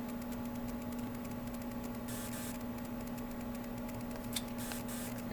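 Steady electrical hum from the bench electronics, with two faint clicks.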